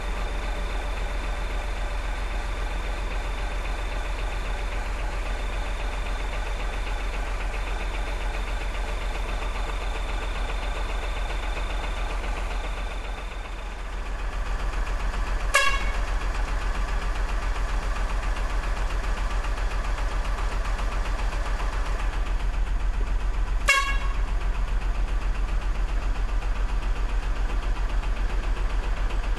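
Steady engine-like drone with a low hum and a thin high whine that drops out about halfway, broken twice by a short sharp horn-like blip about eight seconds apart.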